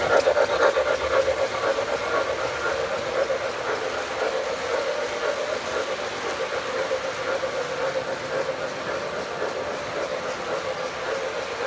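An O-gauge model steam locomotive and its freight cars rolling past close by: a steady rumble of metal wheels on three-rail track, loudest in the first second as the locomotive goes by, then even as the tank cars and reefers follow.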